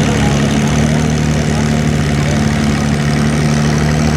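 Antique International Harvester tractor engine running steadily, its pitch holding even.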